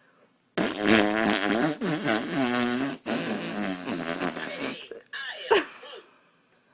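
Long, drawn-out fart sound, wavering up and down in pitch, breaking briefly near the middle and lasting about four seconds. It is followed by a short falling squeak.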